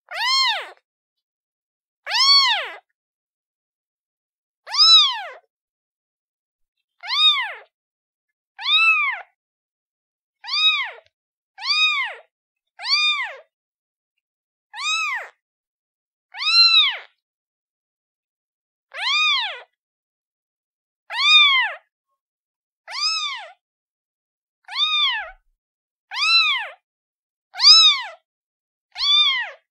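A kitten meowing over and over, short high-pitched meows that each rise and fall in pitch, one every second or two.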